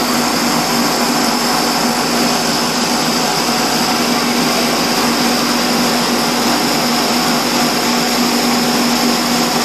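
Commercial salad and vegetable washer running steadily: a constant motor hum with a high whine over rushing, churning wash water.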